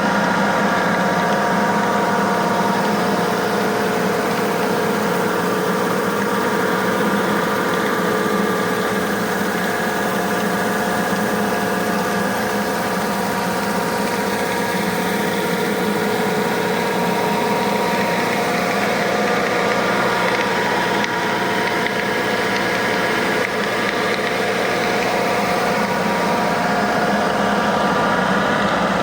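An engine running steadily at a constant speed, an even droning hum that holds the same pitch throughout.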